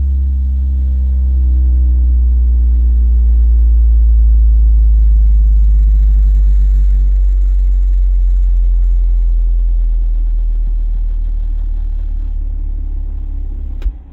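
A 10-inch car subwoofer on a 1500-watt amp playing a loud bass frequency sweep for an SPL test, a deep tone gliding in pitch. It swells to its loudest a few seconds in, then eases, and cuts off with a click near the end.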